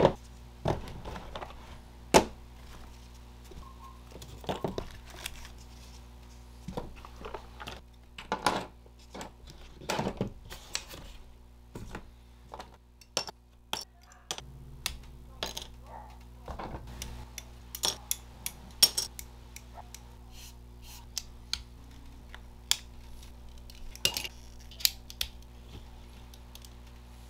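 Irregular sharp clicks and snips of plastic model-kit assembly. A plastic tool case is handled, side cutters snip parts off a plastic runner, and hard plastic parts click together, over a faint steady hum.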